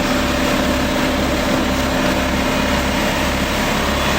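Engine of heavy work equipment running steadily at idle, with a pulsing low rumble and a steady hum.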